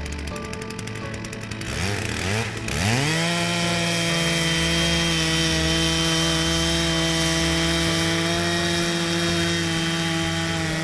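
Chainsaw revving up about two seconds in, its pitch rising quickly, then running steadily at full throttle while cutting lengthwise through the log on a chainsaw mill.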